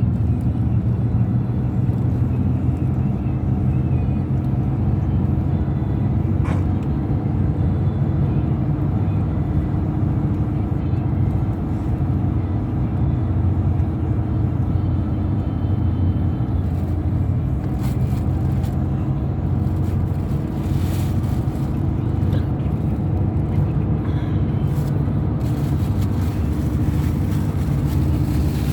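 Steady road and engine rumble inside a moving car's cabin, with the windshield defroster fan blowing.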